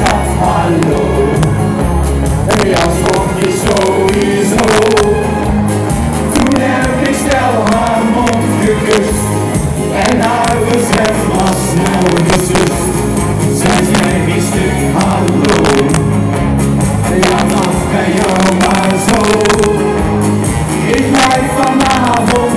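Loud live party music over a PA: a steady beat with men singing into microphones, recorded from the audience with poor, harsh sound.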